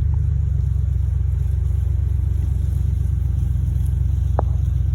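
An engine running steadily with a low, even rumble, with one brief high chirp about four and a half seconds in.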